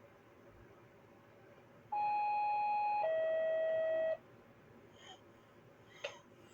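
Two-note electronic chime, a higher note held about a second then a lower note held about a second, each cutting off sharply, like a ding-dong doorbell. Two brief faint noises follow near the end.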